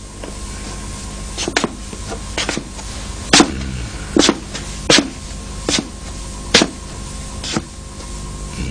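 A series of sharp single knocks or strikes, a little under one a second, over a steady low hum.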